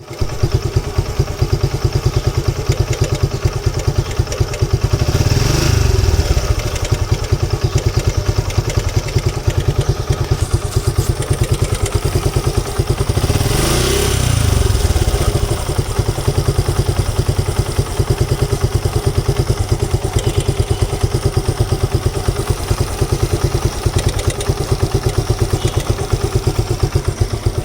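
Suzuki Gixxer single-cylinder motorcycle engine idling with an even beat, with the noise the owner takes for the timing chain. The throttle is blipped twice, briefly raising the revs about five seconds in and again about thirteen seconds in.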